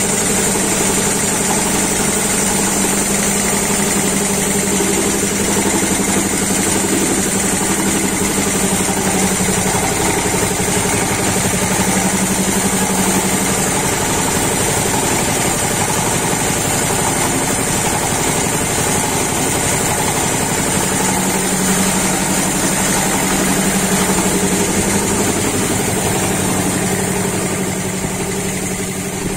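Belt-driven twin-cylinder reciprocating air compressor, powered by an electric motor, running steadily with a rapid, even pulsing beat and a steady high hiss. It is supplying compressed air to a borewell air-lift pump. The sound grows a little fainter near the end.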